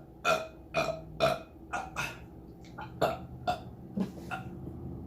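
A person burping in a quick run of short burps, about two a second, fading toward the end, brought up by the fizz of a freshly drunk ginger beer.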